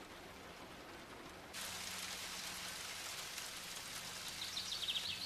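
Steady outdoor background hiss that steps up in level about a second and a half in. A few faint high bird chirps come near the end.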